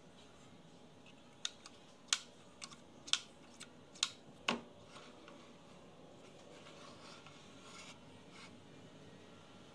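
A quick run of about nine sharp clicks and taps over some three seconds, starting about a second in, as the front shoe and adjustment parts of an old electric hand planer are handled and fiddled with. After that only faint room hiss.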